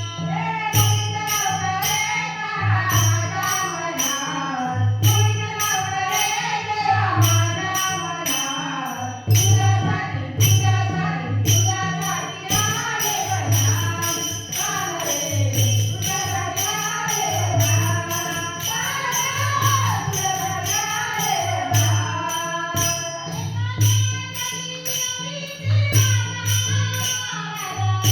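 Woman singing a Marathi gaulan, a devotional folk song about Krishna, with a steady low drum beat and jingling hand percussion keeping time.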